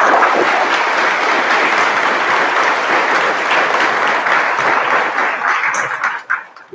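Audience applauding: a dense patter of many hands clapping that thins out about six seconds in to a few last separate claps, then stops.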